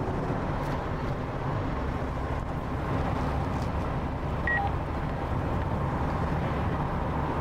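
Steady road and engine noise heard inside a moving vehicle's cabin at highway speed, with a short two-note electronic beep about halfway through.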